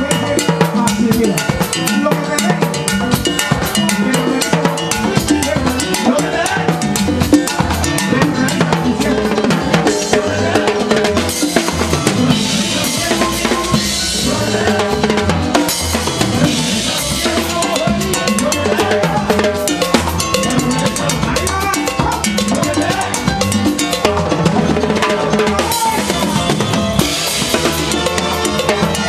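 Drum kit played close up in a live Cuban timba band, with a dense groove on snare, rims, bass drum and cymbals over the rest of the band. The cymbal wash thickens in the middle and again near the end.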